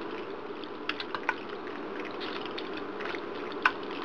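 A serving utensil clicking against the dish as sauce-coated macaroni is spooned into a baking pan: a few short clicks about a second in and one near the end, over a steady low hum.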